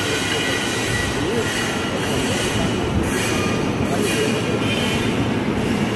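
Loud, steady factory machinery noise, an even hum and hiss with no rhythm or knocks, over faint distant voices.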